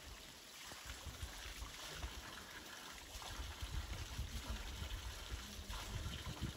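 Spring water trickling from the outlet of an old stone naula (spring-well) as a container is filled at it, faint and steady.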